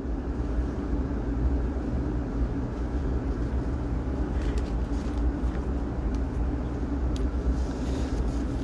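Steady low rumble with a hum. A few faint ticks sound about halfway through and again later.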